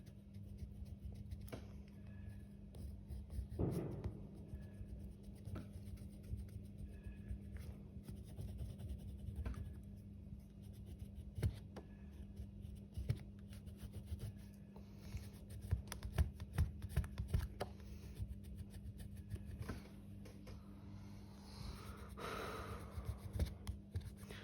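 Colouring strokes on paper: faint, irregular scratching as the river is shaded in light blue, with a couple of louder rustles, over a steady low hum.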